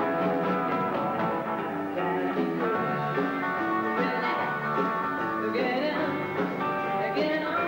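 Live rock band playing: electric guitars and drum kit, with a woman singing lead into the microphone.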